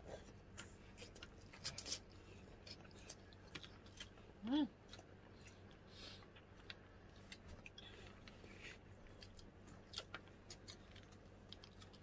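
Close-up chewing of food: soft wet mouth clicks and smacks scattered throughout. About four and a half seconds in there is a brief pitched "mm" hum from the eater.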